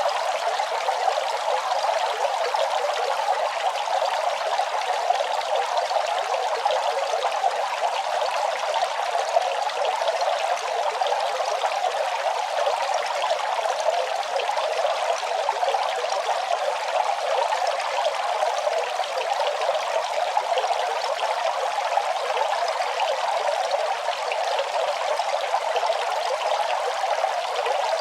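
Running water flowing steadily and evenly, a continuous trickling pour with little deep rumble.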